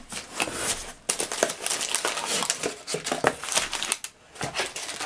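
Plastic packaging crinkling and rustling as it is pulled out of an opened cardboard box, with cardboard flaps scraping, in quick irregular crackles and a short lull near the end.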